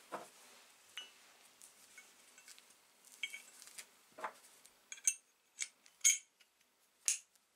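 Steel parts of a hand drill clinking and tapping together as a spur gear and its shaft are fitted into the drill's metal frame, with about four sharp metallic clinks in the last few seconds.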